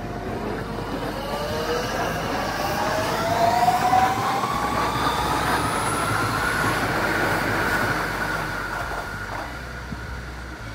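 Tokyu 5050-4000 series electric train accelerating away, its traction inverter and motors giving a whine that rises steadily in pitch over about eight seconds, over the rumble of wheels on rail. The rumble is loudest about four seconds in, then fades as the train draws off.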